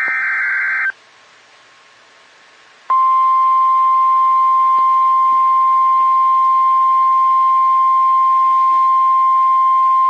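EAS alert on NOAA Weather Radio: the last of the SAME header data bursts, a one-second warbling electronic screech, ends almost at once. After about two seconds of quiet hiss, the steady single-pitch 1050 Hz warning alarm tone starts about three seconds in and holds.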